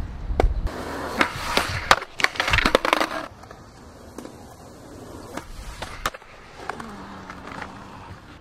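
Skateboard on concrete: rolling wheels and a quick run of sharp clacks and knocks from the board in the first three seconds, then quieter rolling with a few scattered knocks.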